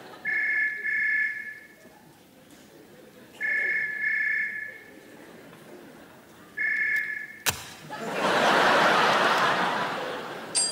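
Desk telephone ringing with a double-pulse ring three times, the third ring cut short by a sharp click. A swell of audience laughter follows.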